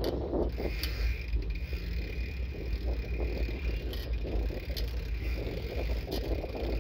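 Bicycle riding over pavement: a steady low rumble of wind on the microphone and road noise, with scattered light clicks and rattles from the bike.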